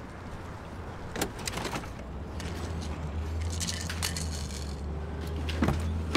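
Someone rummaging through an SUV's interior and cargo area during a search: rustling and clinking of items being handled, with scattered knocks and two sharper thumps near the end. A low steady hum comes in about two seconds in.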